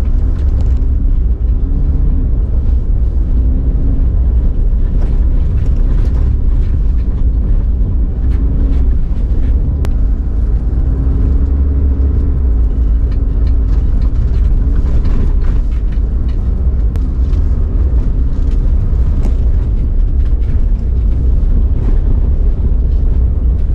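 Car on the move: a steady low rumble of engine and road noise, with a faint engine note rising and falling a little.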